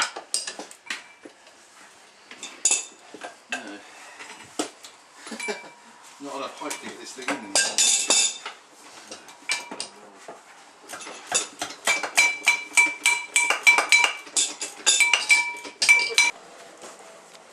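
Metal clanking and clinking of hand tools working on a signal box's metal lever frame as it is dismantled. Scattered knocks give way, in the second half, to several seconds of quick ringing metal strikes, about five a second, that stop abruptly.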